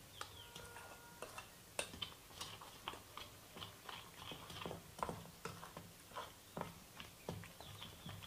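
A metal spoon stirring thick gram-flour batter in a stainless steel bowl: faint, irregular clicks and taps of the spoon against the bowl, a few a second.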